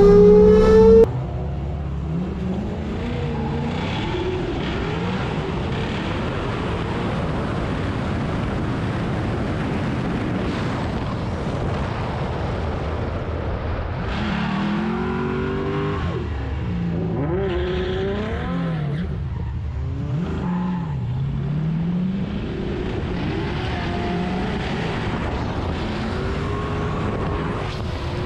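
LS V8 engine in a BMW 135i drift car, revving hard and rising in pitch for the first second. The sound then drops abruptly to a quieter engine note whose pitch swings up and down through the corners, over a steady rushing noise.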